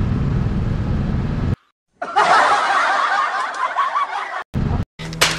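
Low vehicle rumble that cuts out abruptly, then about two seconds of high-pitched snickering laughter, followed by short choppy bursts of sound broken by silent gaps.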